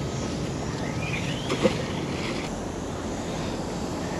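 Wind rushing on the microphone, with a short splash about a second and a half in as a thrown fishing magnet lands in the canal water.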